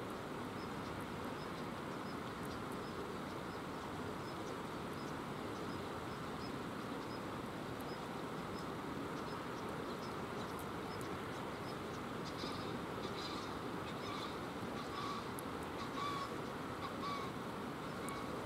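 Steady rush of flowing river water. From about twelve seconds in, a series of about six short, harsh bird calls comes roughly one a second.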